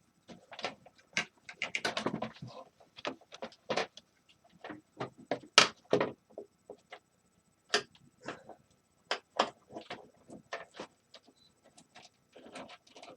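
Irregular clicks, taps and clatter of hand tools and plastic and metal parts being handled while a space heater is taken apart, with a sharper knock about halfway through.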